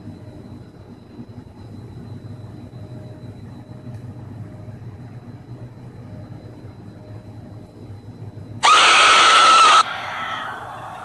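A jump-scare clip's recorded scream: after a quiet low hum, a sudden loud, harsh scream cuts in about 8.5 seconds in and stops abruptly about a second later, leaving fainter eerie sound.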